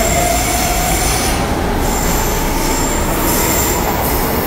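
São Paulo Metro train moving through an underground station over a loud steady rumble, its steel wheels squealing on the rails in a high tone through the first two or three seconds.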